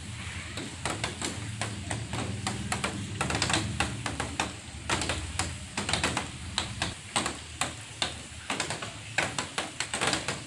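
Sheet of paper being handled and folded into a packet around baking soda: irregular crinkles and taps, over a low steady hum that stops about seven seconds in.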